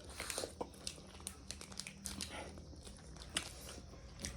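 Faint eating sounds: soft chewing and biting with scattered small clicks.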